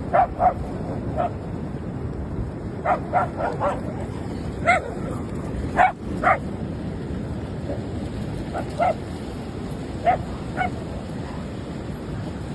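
A dog barking in short, sharp barks, scattered in small quick groups, over the steady rush of surf and wind.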